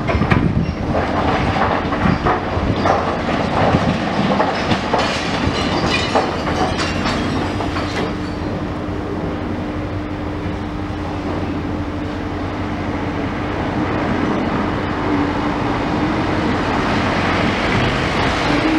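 Demolition excavator's grab tearing into a building, with rubble and metal clattering and crashing down through the first several seconds. After that, the machine's engine and hydraulics run with a steady drone.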